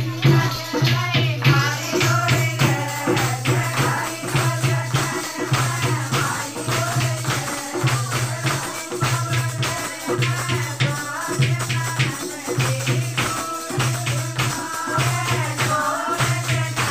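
Women singing a song with a jingling, clapping percussion beat and a low drum-like pulse, while one woman dances.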